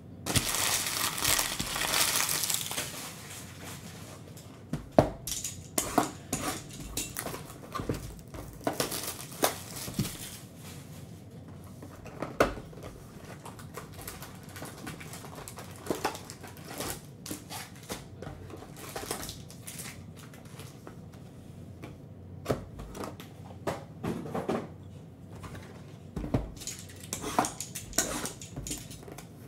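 Trading-card packaging being handled: a loud burst of crinkling wrapper at the start, then scattered clicks and taps of cardboard and cards as packs are pulled from a hobby box, and near the end the crinkle of plastic shrink wrap being torn off a new box.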